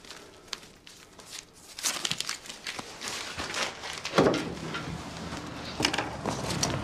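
Rustling of clothing and paper as a man rummages in pockets, with a dull knock about four seconds in. Near the end, a set of keys clinks as it is picked up from a wooden desk.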